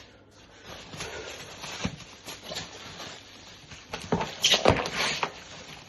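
Handling noise as drill-driver packaging is handled: irregular rustling and scraping with several sharp knocks, the loudest cluster about four seconds in.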